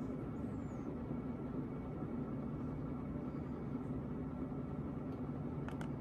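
Casablanca Le Grande ceiling fan running, its motor giving a steady hum and rumble, with a couple of faint clicks near the end. The owner says the fan's bearings are terrible from sitting unused for a long time.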